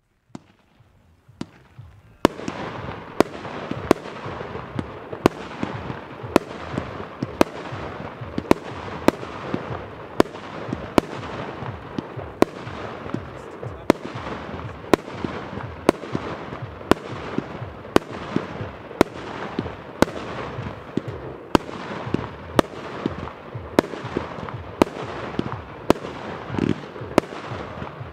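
A 138-shot, 30 mm fireworks compound cake firing: after a faint start, a sharp shot about every three-quarters of a second, steady and regular, over a continuous dense rush of noise from the bursting effects.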